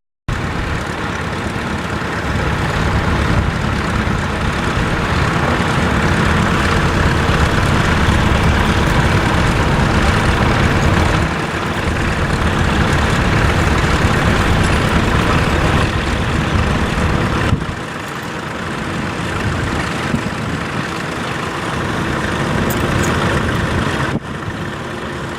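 Tractor engine running steadily, with the sound changing abruptly twice in the second half.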